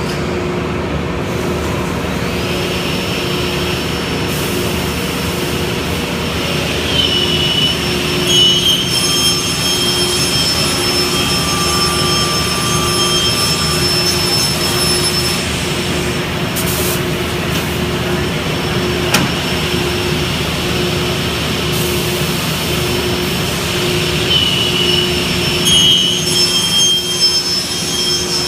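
SCM Sigma 105 beam saw running steadily through a cutting cycle, with a high whine that rises in pitch and holds about a quarter of the way in and again near the end.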